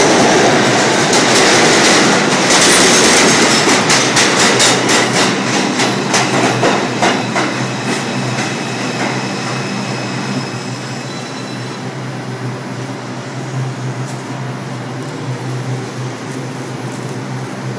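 New York subway train heard from the open gangway between two cars: loud wheel and track noise, then a quick run of rail-joint clicks and high wheel squeals as the train slows into a station. The noise eases to a lower steady rumble as it comes to a stop.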